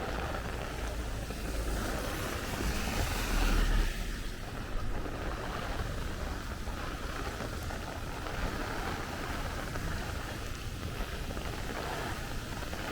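Heavy thunderstorm rain falling with gusty wind rumbling on the microphone, swelling to a stronger gust about three and a half seconds in.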